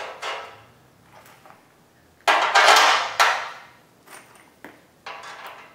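Loose steel nuts, washers and bolts clattering as hardware is handled and picked from a pile. There is one louder clatter lasting about a second, beginning about two seconds in, and a few light clicks near the end.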